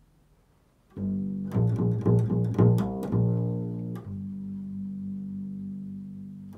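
Solo double bass, played with the fingers: after about a second of near silence comes a quick run of plucked low notes, then a single low note held steady from about four seconds in until just before the end.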